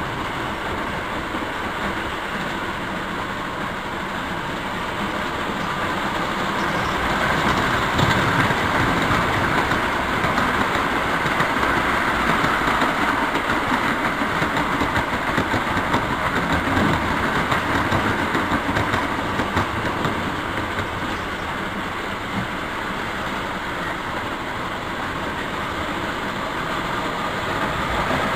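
O gauge three-rail model train running on the track, a steady rumble of wheels and motor that grows louder from about six seconds in and eases off again in the last third.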